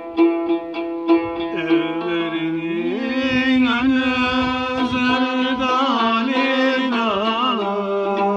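A banjo-bodied long-necked lute played in quick, even plucks for the first few seconds. From about three seconds in a man sings a long, ornamented phrase of a Turkish folk song (türkü) over it, with wavering, bending pitch.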